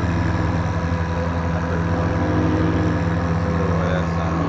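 Ferrari V8 engine idling steadily, low and even, as the car creeps forward at walking pace.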